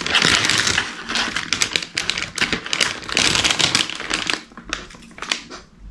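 Crinkling and crackling of a plastic snack bag as it is pulled open by hand, dense and loud for about four seconds, then thinning to scattered crackles.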